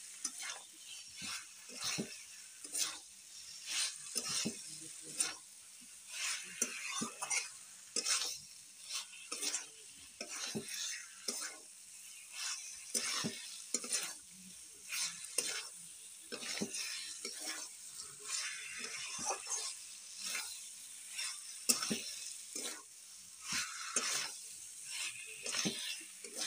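Spatula scraping and stirring a thick masala of fried potatoes, pointed gourd and mushrooms in a metal kadai, in repeated strokes about once a second, over a light sizzle of frying.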